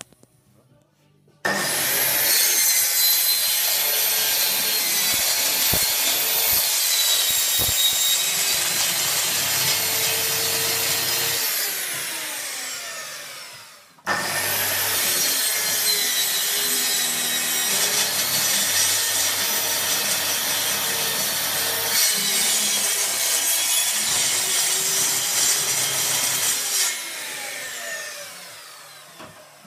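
Plunge-cut circular saw guided along an aluminium rail, cutting wood twice. It starts abruptly about a second and a half in, cuts for about ten seconds, then winds down with a falling whine. Halfway through it starts again for a second cut of about thirteen seconds and winds down near the end.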